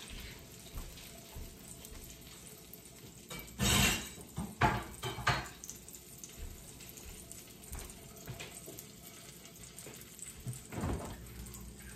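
Kitchen work sounds: a short burst of running tap water about four seconds in, followed by a few sharp clinks and knocks of dishes or utensils.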